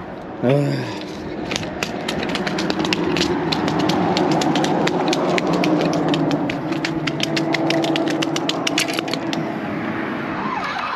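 A motor vehicle passing on the highway bridge alongside, its engine hum swelling over a few seconds and easing off near the end. A rapid, evenly spaced clicking rattle runs along with it.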